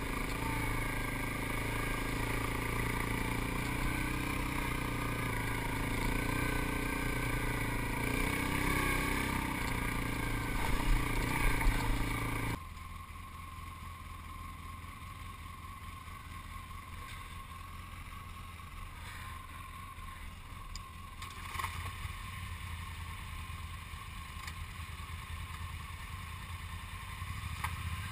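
ATV engine running while riding, with a few louder jolts shortly before the halfway point. It then switches abruptly to a quieter, steady low engine idle with a few light clicks.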